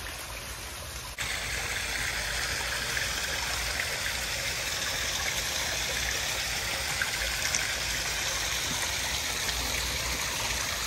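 Water of a backyard koi pond's waterfall splashing and running steadily; about a second in it becomes suddenly louder.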